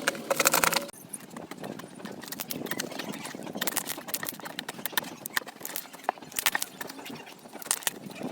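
Slime being squeezed and worked by hand, giving a run of sticky clicks and pops that are densest and loudest in the first second.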